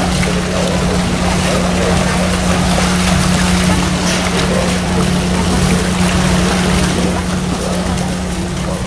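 Steady low mechanical hum under a continuous wash of water noise in a polar bear pool, with water splashing and streaming off a bear as it climbs out.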